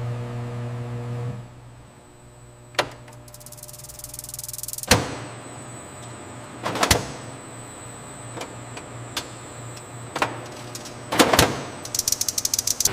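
Low machine hum that stops about a second and a half in, then scattered sharp mechanical clacks and knocks, with a fast run of ticking near the end.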